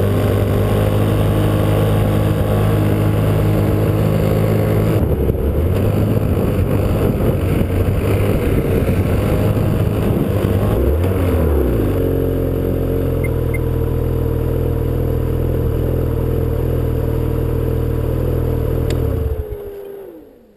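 Snowmobile engine running, steady at first. About halfway through, its pitch swings up and back down, and then it settles again. Near the end the engine is shut off and winds down to a stop, its pitch falling.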